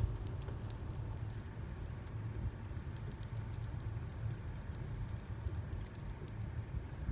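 Car driving on a snowy road, heard from inside the cabin: a steady low rumble with many light, irregular ticks over it.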